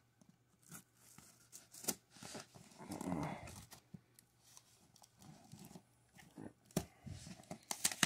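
Curved knife slitting packing tape along a cardboard box seam and the tape being peeled back, with scattered light clicks and scrapes. About three seconds in there is a short, louder pitched sound.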